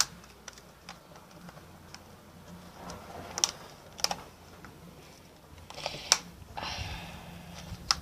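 Sharp, scattered clicks and knocks of small plastic parts being handled as a toy bubble pistol is taken apart, with a short scraping rattle near the end.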